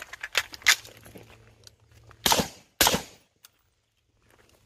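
Gunshots on an open range: several quick shots in the first second, then two louder shots about half a second apart a little over two seconds in, each with a short echo.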